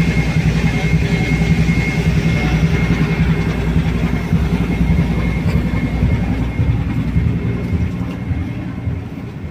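A ship's engines and machinery running with a steady low rumble and a thin steady whine above it, dropping in level near the end.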